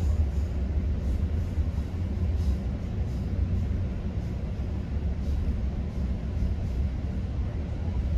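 GO Transit commuter train running along the track, heard from inside a bilevel passenger coach: a steady low rumble of wheels on rail, with faint light ticks and rattles on top.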